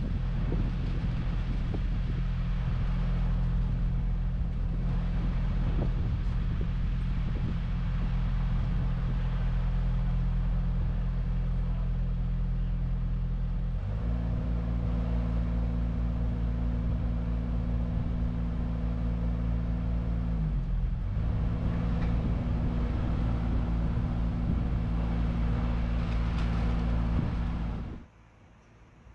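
Diesel engine of a truck-mounted mobile crane running steadily, driving the crane's hydraulics during a lift. About halfway through its speed steps up and holds, with a brief dip and recovery a few seconds later, and the sound cuts off suddenly near the end.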